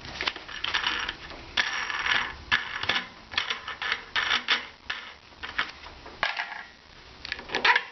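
Irregular clicks, rattles and short scraping sounds of plastic and metal parts being handled as the air filter element is taken off a petrol snowblower's carburettor intake.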